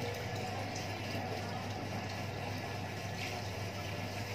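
Steady rushing background noise with a constant low hum underneath.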